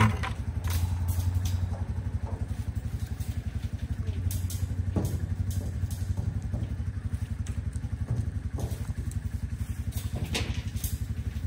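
An engine running steadily at idle, a low, even, rapid pulse, with a few light clanks and knocks from feed buckets and the wire pen over it.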